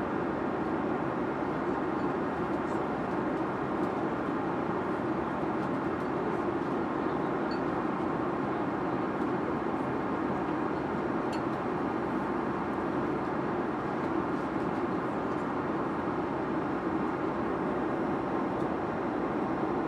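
Steady jet airliner cabin noise in flight: an even rush of engine and airflow noise, with a few faint ticks.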